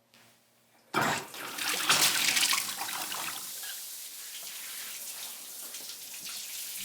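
Shower water turned on about a second in, a sudden rush that settles into a steady spray.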